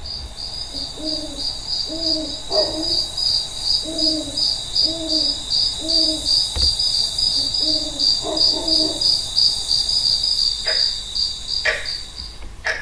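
Stage sound effect of a night: crickets chirping in a steady pulsing trill, about three pulses a second, with an owl hooting in low repeated notes through the middle. A few soft knocks come near the end.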